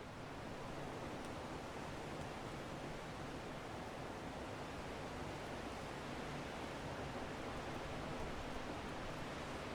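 Strong wind blowing as a steady, even rushing noise that swells up near the start and then holds.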